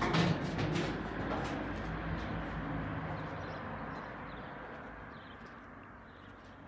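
A vehicle passing by, its noise fading away steadily over several seconds, with a few faint bird chirps.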